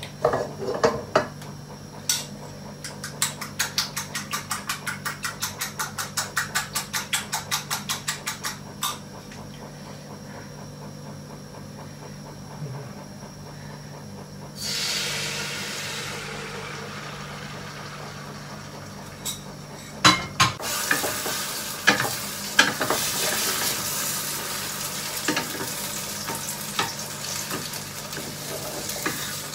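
Eggs beaten with a fork in a bowl: a fast, even clicking at about five strokes a second for several seconds. About halfway through, a sudden hiss as a bowl is emptied into the hot wok, fading within a couple of seconds. Then a few knocks and steady sizzling of frying in the wok, with a wooden spatula stirring and scraping.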